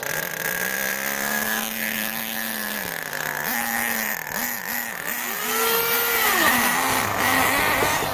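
Small nitro-powered RC car engine running, its pitch held, then swooping up and down several times in quick throttle blips as it is driven.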